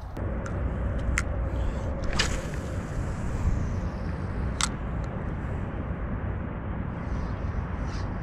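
Steady low outdoor rumble with a few sharp clicks, the strongest about two and four and a half seconds in.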